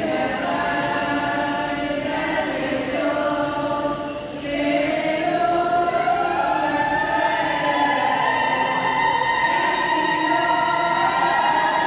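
Women's choir singing a Syriac Orthodox liturgical hymn for Palm Sunday. The singing dips briefly about four seconds in, then comes back louder and fuller.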